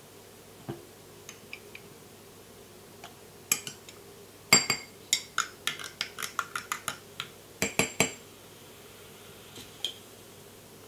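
A metal spoon clinking against glass while maraschino cherries are spooned into a drink: a few light clicks, then a quick run of about a dozen ringing clinks over some four seconds, ending in a last pair of louder ones.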